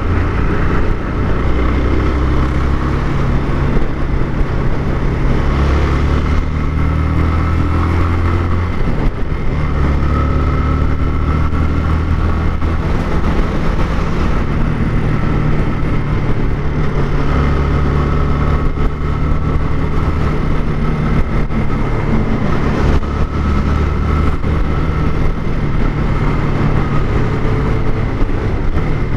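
Motorcycle engine running under way, its pitch climbing and dropping in steps several times as the bike speeds up and slows, over steady road and wind noise.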